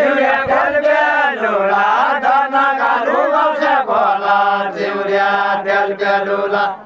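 A group of men singing a deuda folk song in unison, loud and drawn out, the line bending up and down and ending on a long held note.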